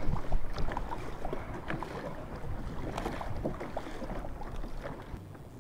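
Choppy lake water splashing and slapping against a kayak as it moves through waves, with wind buffeting the microphone.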